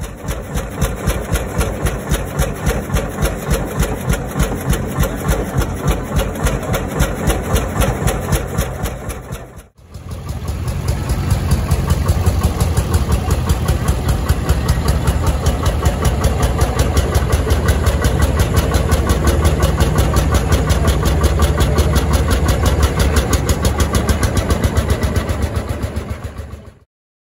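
1935 HSCS K40 tractor's 10.6-litre single-cylinder low-compression 'bulb head' diesel engine running with an even, rapid pulsing beat. It drops out briefly about ten seconds in and comes back louder, then cuts off suddenly near the end.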